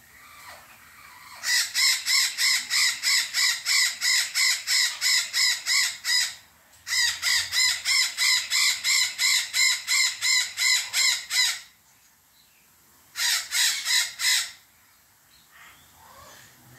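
White-fronted Amazon parrots calling in rapid runs of harsh, evenly repeated squawks, about four a second. Two long runs of several seconds each come back to back, then a short run near the end. The pair is calling around mating.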